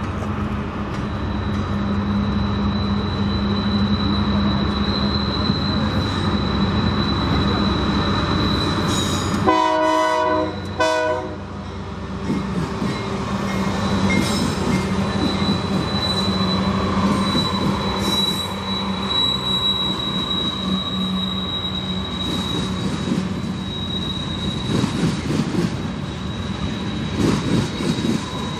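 Freight train rolling past with a thin, steady high wheel squeal. About ten seconds in a locomotive air horn sounds a chord, one longer blast and then a short one.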